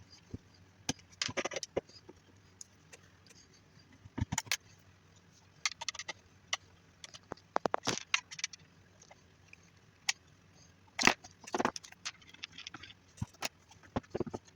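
Irregular clicks and plastic clatter from a power strip's case being unscrewed and taken apart, with a quick run of ticks about eight seconds in and the loudest knocks about three seconds later.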